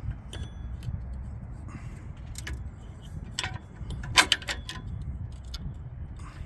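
Scattered metallic clicks and clinks from handling a car horn, its mounting bracket and bolt hardware while refitting it, with the loudest cluster about four seconds in, over a steady low rumble.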